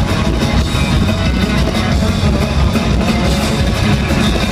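Loud live band music heard from the crowd at an arena concert, picked up by a phone's microphone: a dense, steady wall of sound, heavy in the bass.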